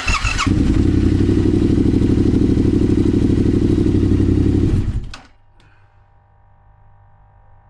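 Yamaha XSR700's 689 cc parallel-twin engine started on the electric starter, catching almost at once and idling steadily for about five seconds before being switched off abruptly. It is run briefly after being refilled with fresh oil, so the oil is drawn through and the sight-glass level settles.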